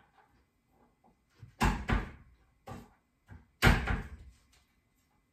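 Two loud knocks or bangs about two seconds apart, each with a quick second hit, and a fainter knock between them. Household kitchen handling sounds.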